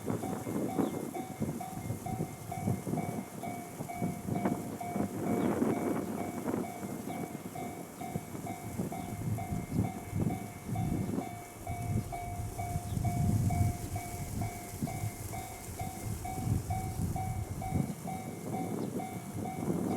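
Japanese level-crossing warning bell ringing in a steady, evenly repeating pulse, while a JR Ryōmō Line train passes with the rumble and clatter of its wheels on the rails.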